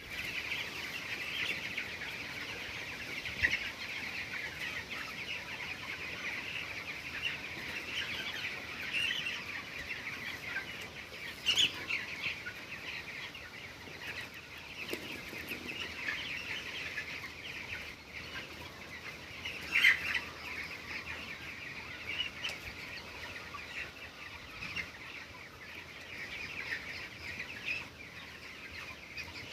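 A flock of young chickens peeping continuously in a dense, high-pitched chorus, with a few brief louder sounds standing out.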